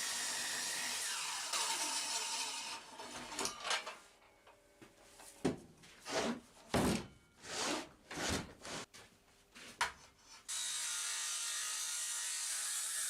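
Woodworking tools cutting into a heavy timber beam: a steady rasping cut, then a run of about ten separate strokes, then the steady cut again near the end.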